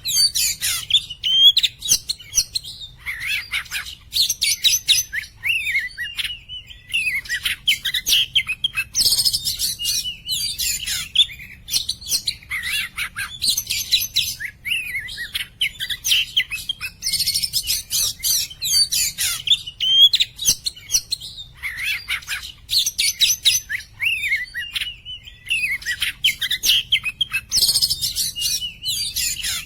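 Oriental magpie-robin (kacer) singing energetically: rapid, varied high whistles and chattering chirps in phrases a few seconds long, broken by short pauses.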